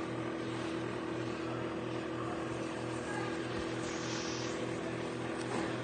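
Samsung microwave oven running: a steady electrical hum with an evenly pulsing low drone.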